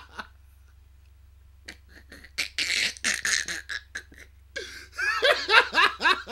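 A man laughing hard in bouts after a short quiet pause. The middle bout is breathy, and the last, near the end, is a quick run of ha-ha pulses.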